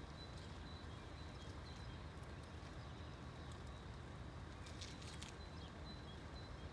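Quiet outdoor background: a steady low rumble with faint, short, high chirps scattered through it, and a brief rustle a little past the middle.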